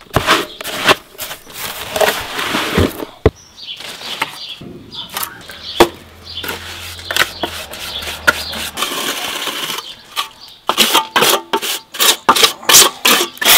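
Steel trowel scraping through gritty mortar in a plastic mixing tub, then scooping it and packing it in behind timber formwork. Uneven scrapes and clicks throughout, with a quick run of sharp taps and knocks near the end.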